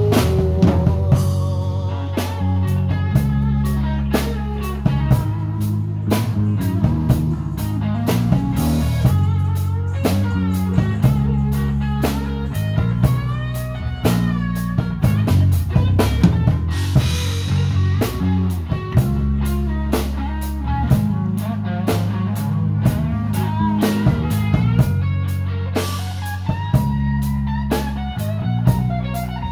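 Live rock band playing: drum kit with snare and cymbal hits, a steady bass line and electric guitar.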